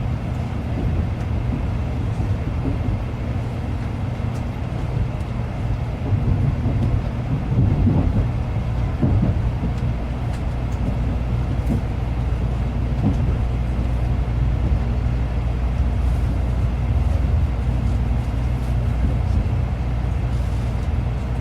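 Shinkansen (Nozomi) train running, heard from inside the passenger cabin: a steady low rumble with a few louder bumps in the middle.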